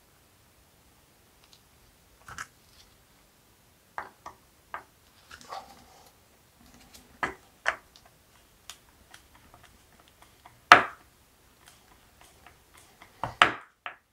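Scattered small clicks and light knocks of epoxy-wet wooden spar pieces being handled and screwed together by hand, with the loudest knock about eleven seconds in and a quick cluster near the end.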